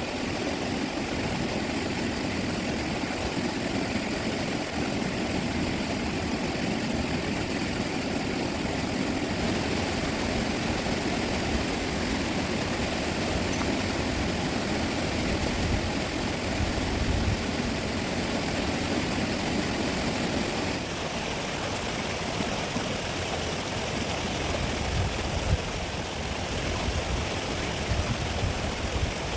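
Rushing river water making a steady, even roar, its character shifting slightly about 9 and 21 seconds in.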